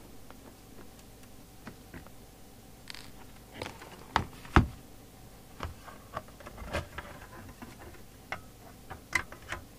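Scattered clicks, taps and knocks of a Rotel RVC220 CB radio being taken apart by hand on the bench, the loudest pair of knocks about four seconds in.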